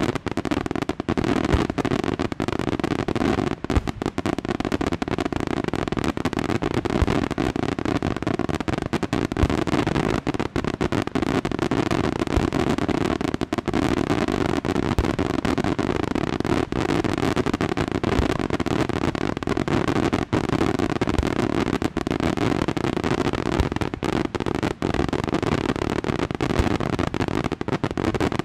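Daytime fireworks going off in a dense, unbroken barrage of rapid bangs and crackling, with no pause.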